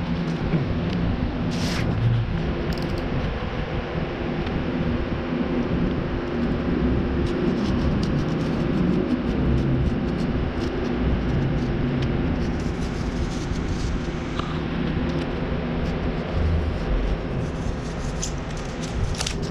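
Steady hum and rush of an electric box fan running, with a few brief scrapes and clicks of a utility knife cutting cardboard on a concrete floor.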